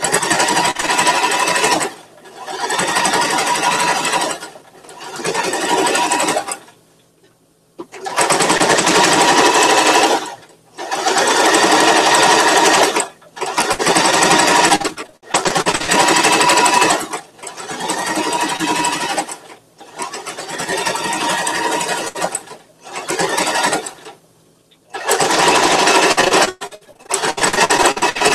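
Electric home sewing machine stitching fabric in short runs of one to three seconds, stopping briefly between them about ten times, with a longer pause about seven seconds in.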